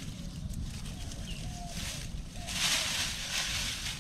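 Hands scraping and rustling through dry leaf litter and grass while clearing the entrance of a crab burrow, with the loudest burst about two and a half seconds in, over a steady low rumble.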